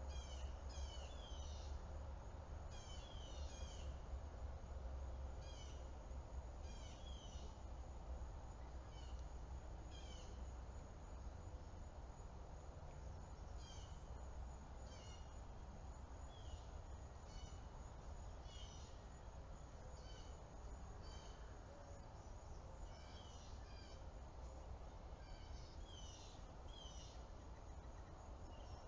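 Small birds chirping in short clusters of quick downward-sliding notes, repeating every second or two, over a steady low rumble.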